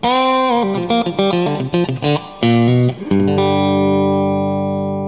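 Short electric-guitar intro jingle: an opening held note, a quick run of notes, then a long held chord that slowly fades.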